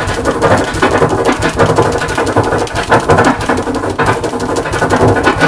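A drum sample on a vinyl record scratched back and forth on a turntable in rapid Kermit scratches, two chirps and a half-speed flare each, with the mixer's crossfader chopping the sound into a quick run of short cuts.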